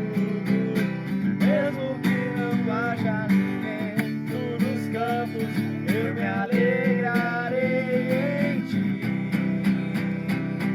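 Acoustic guitar strummed in a steady rhythm, accompanying a man singing a Portuguese worship song.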